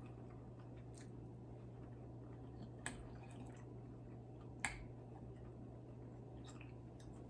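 Faint eating sounds: a few soft mouth or utensil clicks, about three, the loudest a little past halfway, over a low steady hum.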